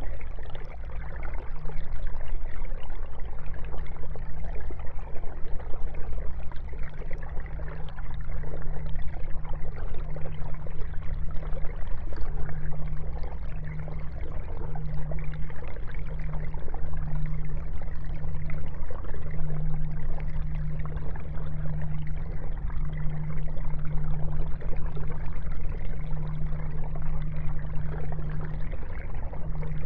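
Aquarium filter running: a steady sound of trickling, pouring water over a low, even hum.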